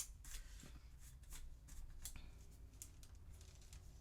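Faint, scattered small clicks and light scrapes of hands handling small craft tools and containers, such as picking up a mixing stick.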